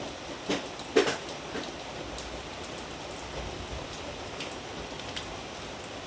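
Steady rain hiss, broken by two sharp clicks about half a second and a second in, the second the loudest, and a few fainter ticks after.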